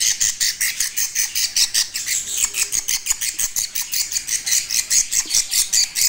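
Baby budgerigar calling over and over in an even, high-pitched train of about five calls a second.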